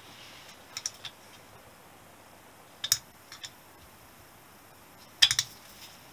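Sharp metallic clicks and clinks of a wrench working the 6 mm cylinder nuts on a Honda XL250S engine as they are snugged up by hand. The clicks come in small groups about a second in and around three seconds in, with the loudest cluster near the end.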